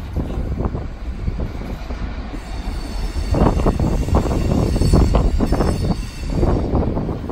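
Class 43 HST power car's diesel engine running as the train pulls slowly away over pointwork, with a low rumble that swells twice. A faint high wheel squeal comes and goes.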